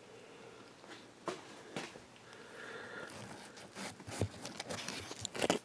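Scattered rustles, scrapes and light clicks of hands handling a car seat frame and its old, disintegrated burlap padding. The sharpest knocks come about four seconds in and near the end.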